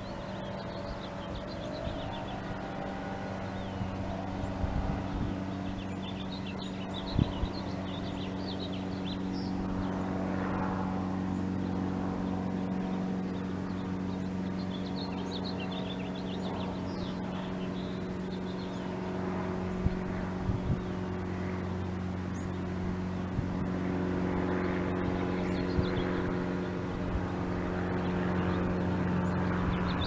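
Steady machinery hum: a low tone with its overtones, slowly growing a little louder. Faint high chirps come and go several times over it, with an occasional click.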